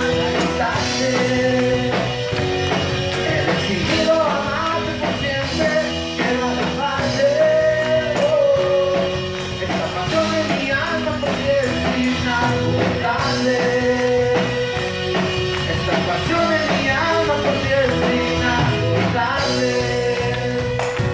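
Live church worship band playing steadily, with a singer's voice over keyboards and a steady beat.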